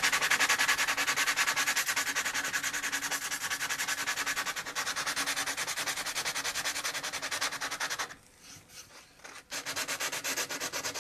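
Hand sanding with folded 120-grit sandpaper on a wooden chair back rail: quick back-and-forth rubbing strokes, smoothing a repaired spot just levelled with a spokeshave. The strokes stop for about a second and a half near the end, then start again.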